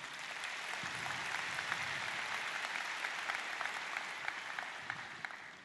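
Applause from a large audience, many hands clapping together. It holds steady, then fades out over the last second.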